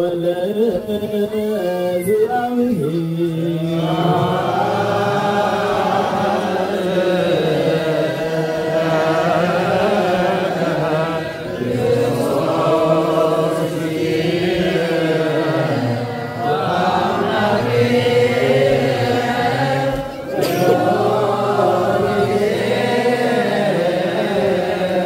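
Ethiopian Orthodox church chant sung by a group of voices together, in phrases that rise and fall with short breaks between them.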